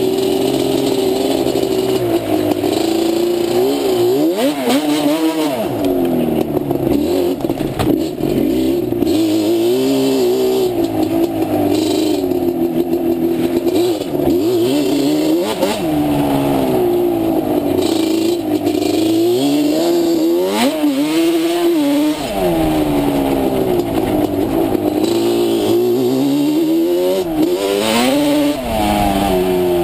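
Yamaha Banshee ATV's twin-cylinder two-stroke engine revving up and falling back over and over as the throttle is worked on a trail ride.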